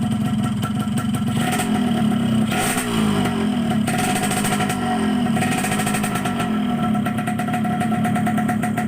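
Yamaha RX-King two-stroke engine with a Thai YP2 cylinder block running steadily, with several short blips of the throttle in the middle that make its pitch rise and fall.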